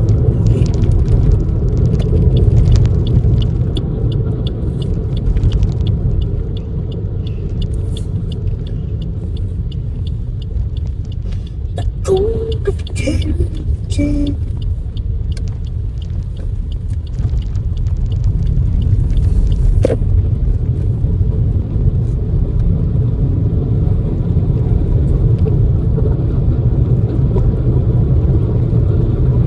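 Steady low rumble of a car in motion heard from inside the cabin: engine and tyre road noise. A short, faint vocal sound comes about twelve seconds in.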